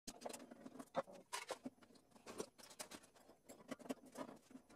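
Faint, irregular small clicks and scrapes of a hand screwdriver backing screws out of the plastic base plate of a Keurig K40 coffee maker, with the plate handled by hand near the end.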